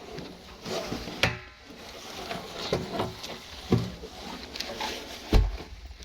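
A few separate knocks and thuds from objects being handled, at irregular intervals, the heaviest about five seconds in, over faint rustling.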